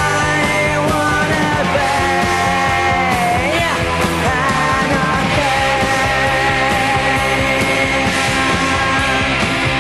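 Punk rock song playing: a loud, driving band of distorted electric guitars, bass and drums, with a male lead vocal sneering out the lyrics.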